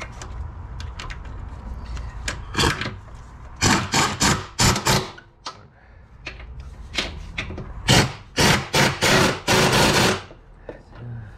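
Cordless ratchet run in a series of short bursts, snugging down bolts on a transmission mount after they were started by hand. The later bursts run longer.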